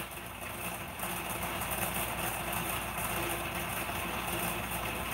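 Steady low mechanical hum, a little louder from about a second in.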